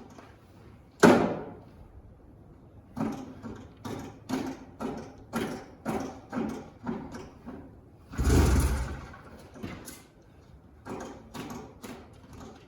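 Pull-start attempts on a vintage snowmobile's small Sachs single-cylinder two-stroke engine that does not fire. There is a sharp knock about a second in, then a run of short evenly spaced knocks and a longer rushing burst near the two-thirds mark, with no sound of the engine running. The owner fears the engine is flooded.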